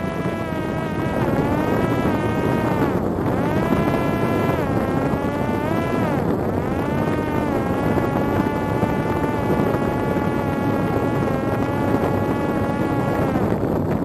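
Parrot Disco's electric motor and pusher propeller whining in flight over a rush of wind. The pitch dips and recovers twice, holds steady for several seconds, then falls away near the end.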